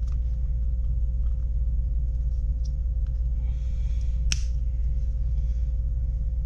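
Steady low hum with a faint higher steady tone, under light clicks and brief rustling from handling a Comica V30 Pro shotgun microphone in its shock mount; one sharper click about four seconds in.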